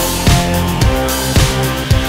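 Background music with a steady drum beat, about two beats a second.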